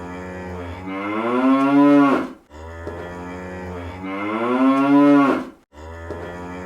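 A cow-like moo, looped: two long moos, each swelling louder over about two seconds before cutting off abruptly, with a third starting near the end.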